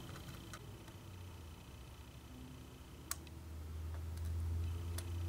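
Faint ticks and one sharp click, about three seconds in, of small metal tweezers working at a bent pin in an LGA 775 CPU socket. A low hum underneath grows louder in the second half.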